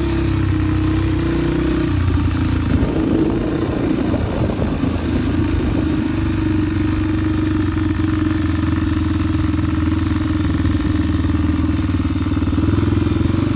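Small Yamaha dirt bike engines running: a steady buzzing drone. About two seconds in the note drops and turns rough and uneven for a few seconds, then settles back to a steady drone.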